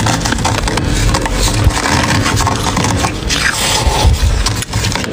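Thick, fluffy freezer frost being scraped and crunched: a dense, continuous crackling crunch.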